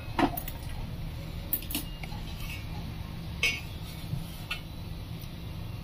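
Kitchen utensils and dishes clinking on a stone counter: a few scattered light knocks and clinks over a low steady hum.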